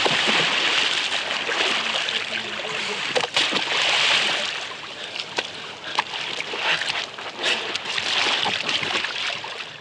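River water rushing and sloshing around a floating log, with several sharp splashes through it.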